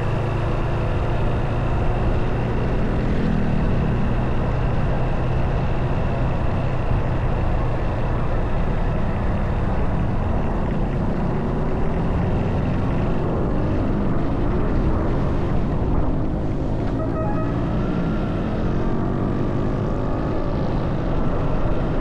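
Motorcycle engine running under way, with wind and road noise. The engine note rises and falls a few times.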